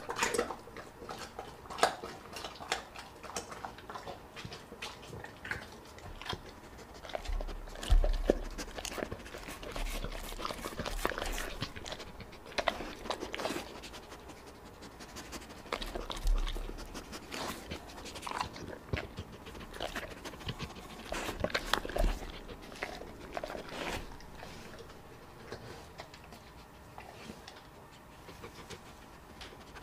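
A yellow Labrador retriever licking a wet wooden board up close, with many small wet clicks and smacks and bouts of panting, and a few dull low bumps against the board.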